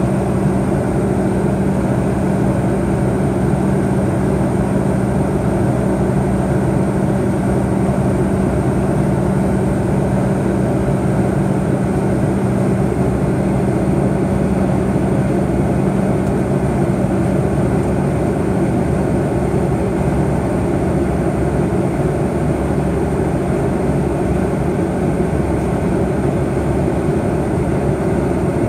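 Steady cabin drone of a McDonnell Douglas MD-88 in flight, heard inside the cabin: its tail-mounted Pratt & Whitney JT8D engines humming low under a constant rush of airflow.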